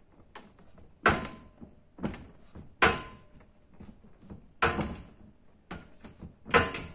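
Hand-driven steel-frame gravity wheel machine (a Skinner replica) knocking and rattling in a steady rhythm, four loud clunks about two seconds apart with lighter knocks between. The knocks come once per turn as the spinning pair of weights accelerates and the frame jumps on the floor.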